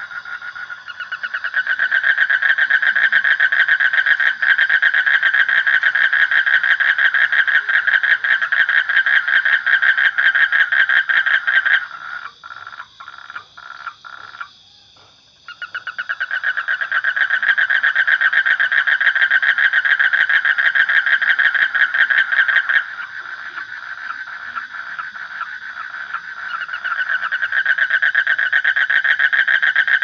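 Frogs calling in a loud, rapid pulsing trill. About halfway it breaks into a few separate notes and a brief lull, then resumes. Later it thins to softer, spaced pulses before the full trill returns.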